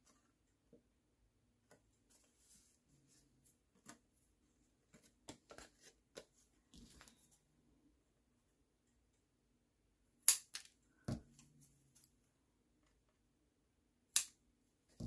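Scissors cutting cardstock: a couple of sharp snaps as the blades close through the card, about ten seconds in and again near the end. Before them, soft rustling of card being handled.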